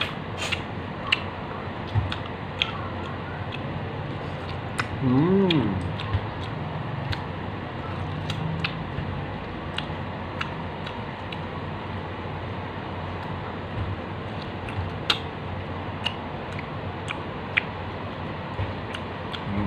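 Close-up mouth sounds of eating ripe mango flesh off the skin: scattered wet clicks and lip smacks over a steady background hiss, with one brief voiced hum about five seconds in.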